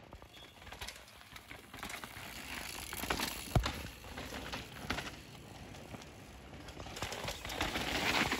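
Downhill mountain bike on a rough dirt trail: tyre noise with rattling knocks from the bike, a sharp knock about three and a half seconds in, and the tyre noise growing louder near the end.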